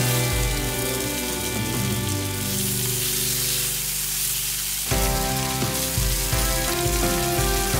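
Chicken drumsticks sizzling in olive oil in a frying pan as they are turned with tongs, under background music with sustained notes.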